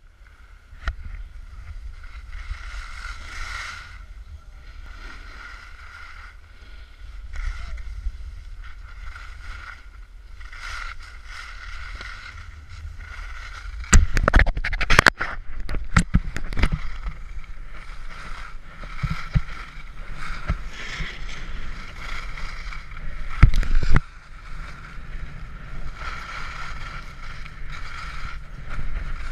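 Wind rushing over an action camera's microphone while skiing downhill, with the skis hissing and scraping over packed snow. Loud knocks and rubbing against the microphone come in a cluster around the middle and once more near the end.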